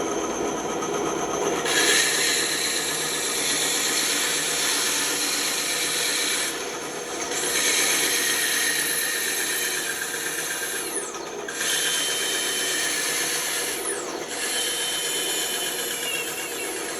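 Bandsaw running and cutting through a thick piece of wood: a steady hissing cut over the motor's hum. The cutting hiss drops away three times, briefly, then resumes.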